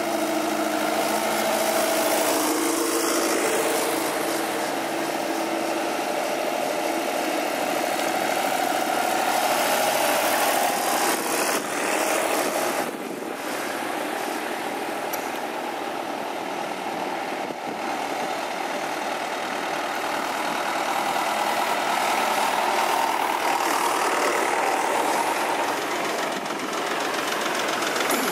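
Vintage farm tractor engines running as the tractors drive past one after another. The sound dips a little about halfway through and builds again near the end as the next tractors come close.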